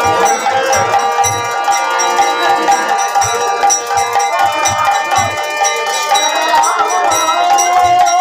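Kirtan music: a harmonium holds steady chords over the even beat of khol drums, with small hand cymbals clinking in time. Near the end a wavering sung note comes in over the music.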